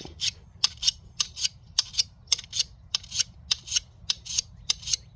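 A 10-inch single-cut mill bastard file rasping across the edge of a lawn mower blade in quick, even strokes, about three a second, taking off metal to sharpen the edge.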